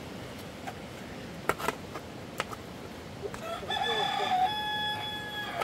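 Rooster crowing once, a long call that starts about three and a half seconds in and holds a steady note to the end. A few sharp knocks come before it.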